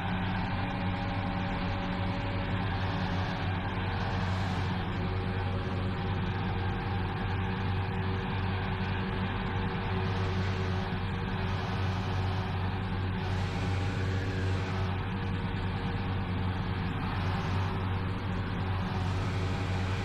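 Large farm tractor's diesel engine running steadily, a low, even drone.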